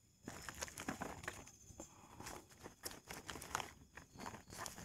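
Faint rustling of a plastic bag with small irregular clicks and ticks, as hands get shallots out of a bag to peel them.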